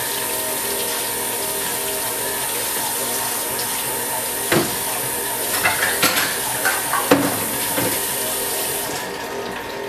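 Kitchen tap running into the sink as dishes are washed, with a few knocks of dishes, over the steady hum of a stand mixer kneading bread dough. The water stops near the end while the mixer keeps running.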